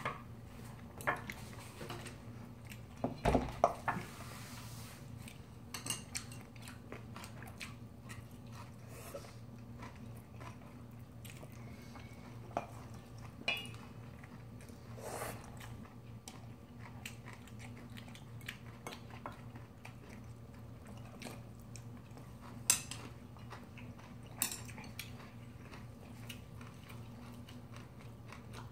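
Chopsticks and a spoon clicking and scraping against bowls, including a large stainless steel mixing bowl, with chewing of bibimbap. The clicks are scattered, with a cluster of louder knocks about three to four seconds in.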